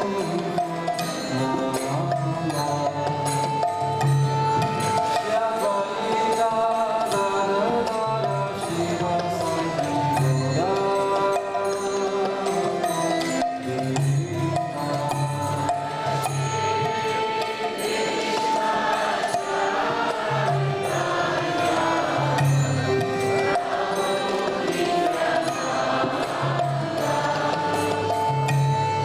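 Devotional kirtan: a group chanting a mantra melody over long held notes, with a steady hand-drum beat underneath.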